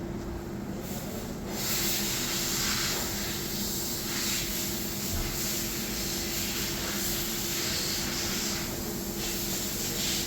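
A steady rushing hiss over a low, even hum. It sets in about one and a half seconds in and holds level.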